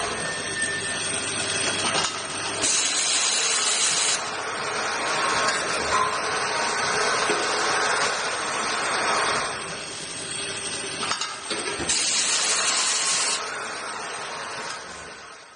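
Automatic tapping machine running with a steady mechanical noise, broken twice by a hiss lasting about a second and a half, about three seconds in and again about twelve seconds in. The sound cuts off abruptly at the end.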